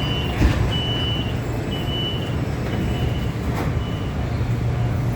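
Metro door-closing warning beeps: a high electronic beep repeating about once a second, stopping about four seconds in, over the steady low hum of trains and platform machinery.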